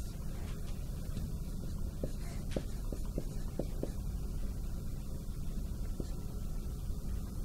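Marker writing on a whiteboard: a run of short, quick strokes between about two and four seconds in, over a steady low room hum.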